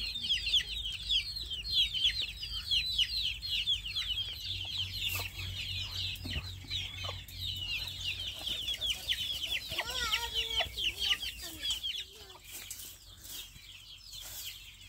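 Chickens calling: a dense run of quick, high chirps for about twelve seconds, then fewer, with a lower clucking call about ten seconds in.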